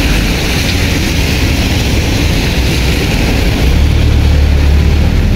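Bus engine running with a steady low hum under an even hiss from tyres on the wet road. The engine hum grows louder about two-thirds of the way in.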